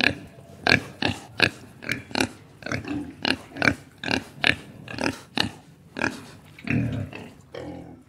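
A group of young pigs making short, repeated squealing grunts, about two to three calls a second, that stop just before the end.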